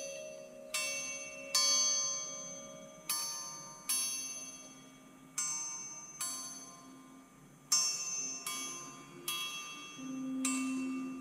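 Metal chimes struck one at a time, about a dozen strikes at an uneven, unhurried pace, each ringing out and fading before the next, over a soft low tone.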